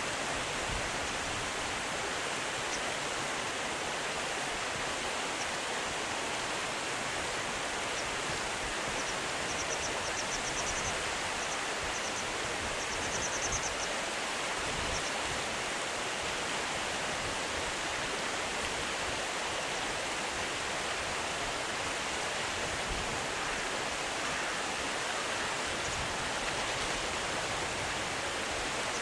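Steady rush of flowing river water. Faint, high, rapid chirping ticks come in from about nine seconds in and stop by about fifteen seconds.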